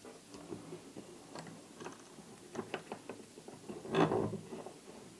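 Small clicks and taps of hand tools against a small LED circuit board held in a bench vise, then a short louder scrape about four seconds in as a thin metal tool is pressed on the board.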